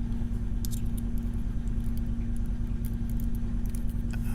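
A steady low hum, with faint light metallic clicks and ticks scattered through it: small lock pins and springs being handled and taken out of a Mul-T-Lock Junior pin-in-pin cylinder.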